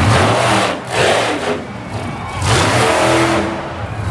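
Monster truck engine revving hard in two loud surges, the pitch rising and falling.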